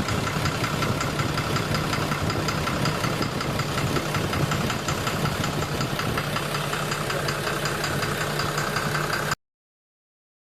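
12-M FE engine idling with a rapid, steady knocking: the engine knock being diagnosed. The sound cuts off suddenly near the end.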